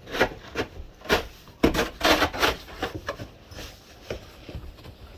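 Snow shovel scraping and scooping snow in a run of short, uneven strokes.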